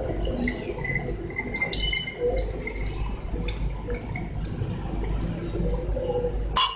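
Thickened milk being poured into a plastic bottle: a steady liquid filling sound, with a sharp knock near the end.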